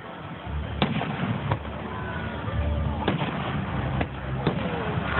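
Aerial firework shells bursting overhead: about five sharp bangs spaced roughly a second apart, over a low rumble.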